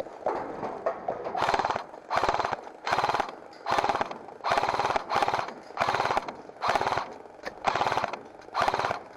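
G&P M249 airsoft electric gun firing in short bursts of rapid fire, about ten bursts a second or so apart, each about half a second long.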